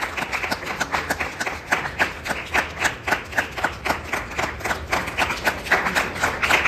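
A small audience clapping: individual hand claps, several a second, in an uneven, continuous patter.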